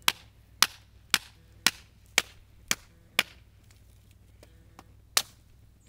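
A hatchet chopping firewood on a tree stump. Seven sharp chops come evenly at about two a second, and after a pause of about two seconds there is one more chop.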